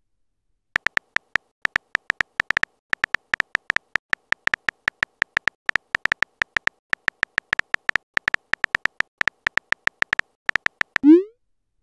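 Simulated phone keyboard typing sounds: short beeping ticks, several a second, one per letter as a text message is typed out. Near the end a rising swoosh marks the message being sent.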